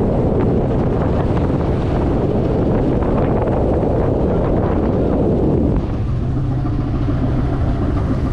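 Wind buffeting the microphone over the steady drone of a trawler's engine and the rush of sea wash along the hull. About six seconds in, the wind eases and the engine's low hum comes through more clearly.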